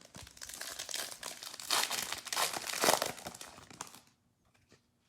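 Plastic-foil trading card pack wrapper being torn open and crinkled for about four seconds, then a couple of faint clicks.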